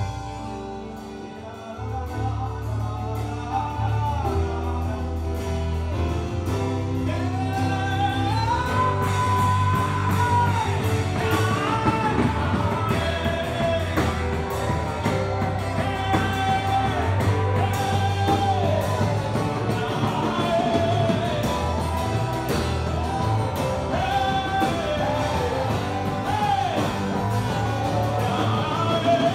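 Live gospel band music: held keyboard notes at first, the full band with a strong bass coming in about two seconds in, and singing over it from about eight seconds in.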